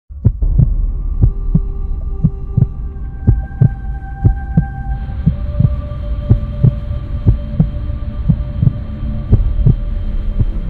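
Dark intro soundtrack built on a double-thump heartbeat sound effect, about one beat a second, over a low drone and held tones that shift to a new chord about halfway through.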